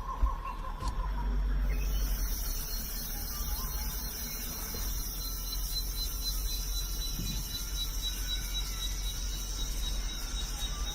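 A high-pitched, steady chorus of insects such as crickets, starting abruptly about two seconds in, over a low rumble. It follows a warbling call that fades out in the first second.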